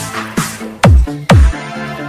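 Electronic dance music with steady bass notes. Two loud booms, each sweeping steeply down in pitch, come a little under a second in and again about half a second later.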